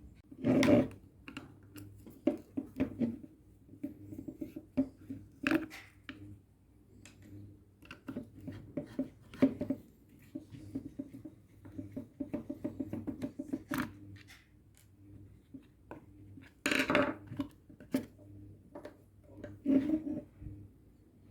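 Hand work on an Audi A4 B8 door lock assembly: irregular clicks, taps and knocks of a screwdriver and plastic parts as the screws are undone and the lock's back cover is taken off, with a run of quick even ticks about halfway through.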